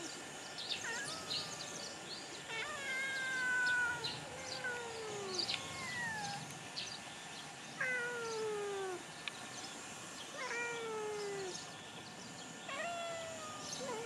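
Cat meowing repeatedly: about six drawn-out mews, each falling in pitch, with small clicks in between.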